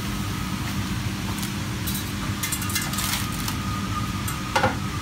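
Hot oil crackling and spitting as a fried pappadom is lifted out of the pan with a metal slotted spatula, heard mostly around the middle, over a steady low machine hum. A single metal knock near the end as the spatula strikes the pan.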